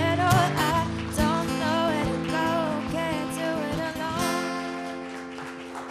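A woman singing to a strummed ukulele and acoustic guitar. About four seconds in the playing stops on a final chord that rings and fades.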